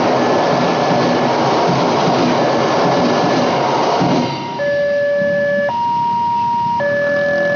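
A train runs over the level crossing with a loud, steady rumble for about four seconds. As it clears, the crossing's electronic warning siren, an uncommon type at Indonesian crossings, comes through plainly, switching between a higher and a lower tone about once a second.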